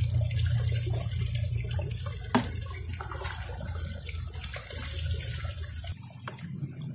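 Water poured from a plastic pitcher splashing over a wet dog and into a basin below, a steady running-water sound, with one sharp knock about two and a half seconds in.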